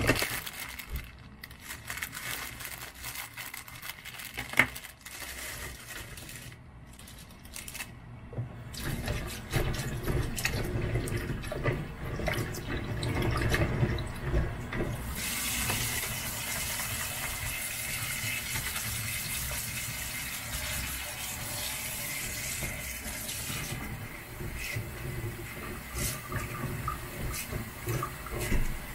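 Plastic packaging rustling and clicking, then a kitchen tap running into a plastic tray of green beans in a stainless steel sink while hands swish the beans to wash them. The water runs harder from about halfway through and eases near the end.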